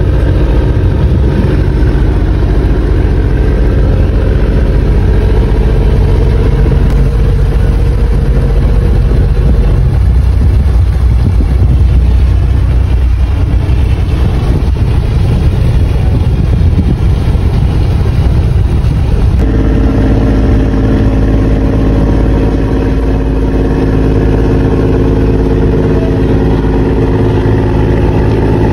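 Boat engine running steadily at close range, a low, even hum whose note changes abruptly about two-thirds of the way through.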